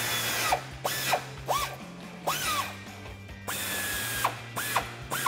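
Cordless power tool spinning a 14 mm socket to take a crash beam nut off a Toyota Tacoma. It runs in several short trigger bursts, each whirring up and back down, with two longer runs, one at the start and one past the middle.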